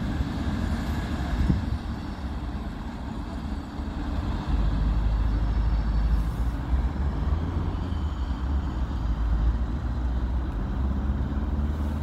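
Class 37 diesel locomotive's English Electric V12 engine running as it moves away down the line, a low rumble that grows louder about four and a half seconds in.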